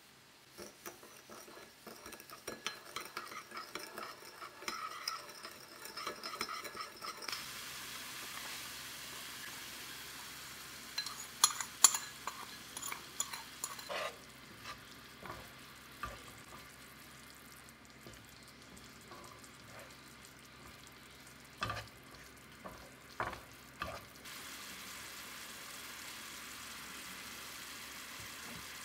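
A metal spoon stirs sugar into soy sauce in a ceramic bowl, clinking against the sides. Then chopped onion sizzles steadily in a frying pan, stirred with a spatula, with several sharp knocks and scrapes of the spatula against the pan.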